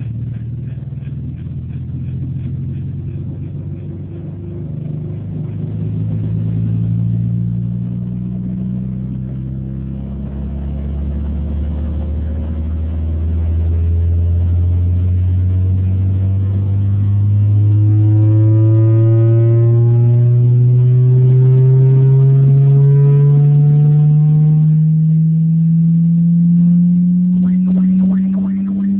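Loudspeaker playing a loud low bass test tone with overtones above it. The pitch wanders among several low notes at first, then from about ten seconds in a single bass tone glides slowly and steadily upward.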